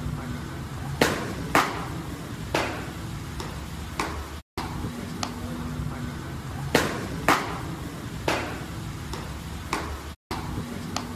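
Fastballs popping into catchers' leather mitts in a bullpen, sharp loud pops in a cluster of two or three, the same cluster coming again about six seconds later, over a steady background hiss. The sound cuts out completely for a moment about four and a half seconds in and again near the end.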